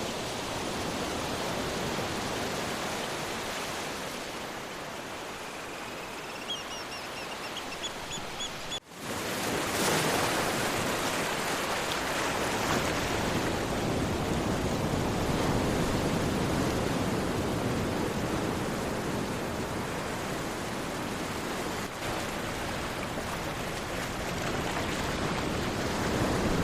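Sea waves washing on a shore, a steady rushing surf. A short run of high chirps comes through around the middle, and about nine seconds in the sound drops out for an instant, then the surf comes back louder.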